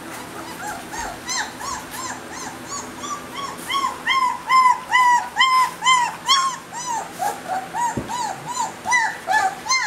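Three-week-old Newfoundland puppy crying in a rapid string of short, high whines, about three a second, each rising and then falling in pitch. They grow louder toward the middle and keep going to the end.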